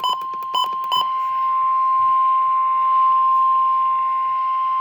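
NOAA Weather Radio warning alarm tone, a steady 1050 Hz beep held continuously, the signal that a warning message is about to be broadcast. Three brief clicks break into it in the first second, over a light radio hiss.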